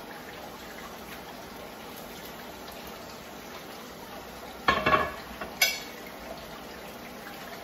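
Plantain slices and fresh-corn tamales sizzling steadily in hot oil in a skillet. Almost five seconds in comes a quick run of ringing clatters from kitchen utensils, then one more sharp clink half a second later.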